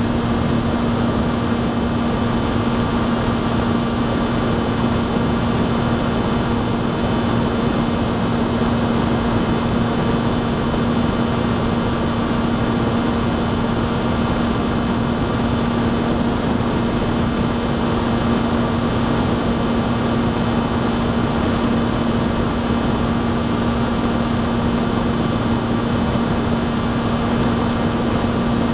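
Motor and propeller of an FPV radio-controlled aircraft in steady cruising flight, heard from on board: a constant-pitch drone over a dense rushing noise, holding the same level throughout.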